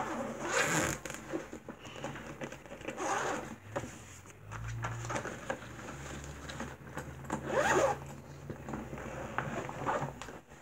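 Backpack zipper pulled three times, each a quick rasping pull, with rustling and bumps as the bag is handled.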